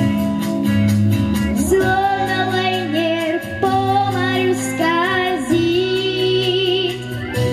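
A young girl singing into a handheld microphone over a pop backing track with a steady beat, holding long notes with vibrato.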